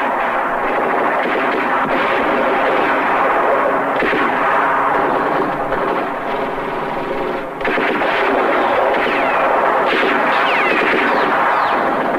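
Battle-scene gunfire from a war film soundtrack: sustained machine-gun and rifle fire, dense and continuous, with a brief lull about seven and a half seconds in.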